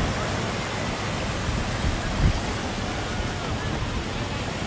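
Steady hiss of sea surf breaking on the beach. Wind buffets the microphone in low thumps, the strongest about two seconds in.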